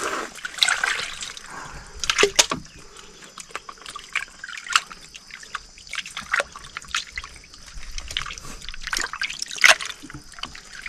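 Water splashing and dripping in a plastic basin as hands rinse raw meat, in irregular small splashes, with a couple of louder ones about two seconds in and near the end.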